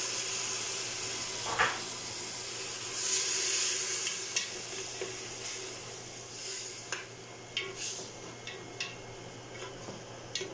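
Blended tomato sizzling in hot oil in a metal pot, with a louder stretch of sizzling about three seconds in. Through the second half, a wooden spoon scrapes and taps against the pot as the sauce is stirred.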